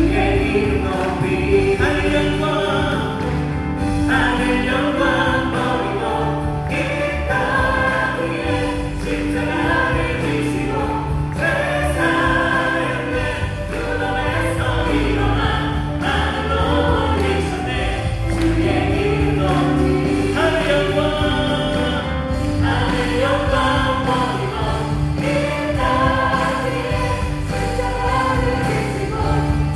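A group of singers, mostly women, singing a Korean praise song in unison with a live worship band: acoustic guitar, keyboard, bass and drums.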